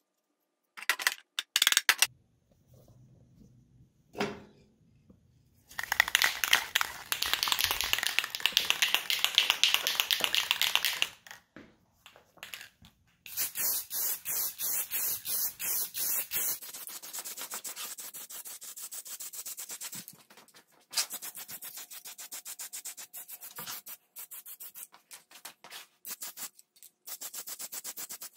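Aerosol spray-paint can spraying in a series of hissing passes, each a few seconds long, with short gaps and a few clicks between them.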